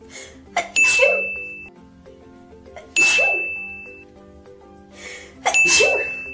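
Three allergy sneezes, about two and a half seconds apart, each after a short sharp intake of breath. A bright ding rings for about a second with each sneeze, over soft background music.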